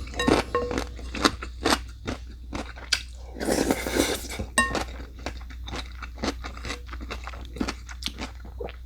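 A person chewing crunchy food close to the microphone: a quick run of crunches, with a longer noisy stretch a little past three seconds in.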